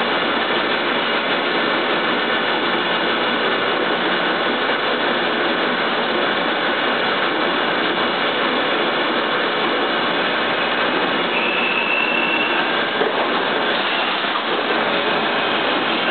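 Industrial cold-cut slicing line with a robotic loader running: a steady, dense mechanical noise, with a faint high whine for about a second near the twelve-second mark.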